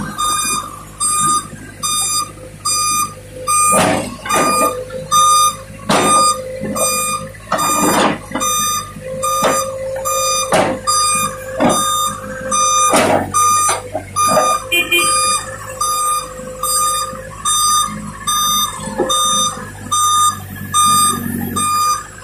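A vehicle reversing alarm beeping steadily, a little over once a second, over a diesel engine running. Several heavy metallic clanks and knocks come in the middle, from the New Holland backhoe loader handling bundled excavator track chain.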